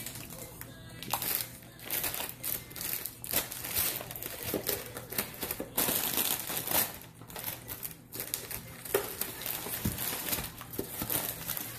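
Plastic snack-bag packaging crinkling and rustling in the hands, with irregular crackles throughout as the bag is turned over and handled.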